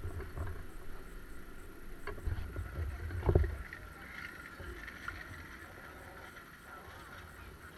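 Wind rumbling on a kart-mounted camera's microphone, with a single thump about three seconds in and a faint steady high hum in the background.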